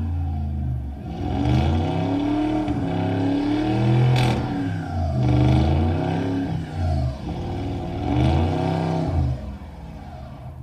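A car engine revving up and down over and over, roughly every second and a half, with some clatter; near the end it falls back to a quieter steady hum.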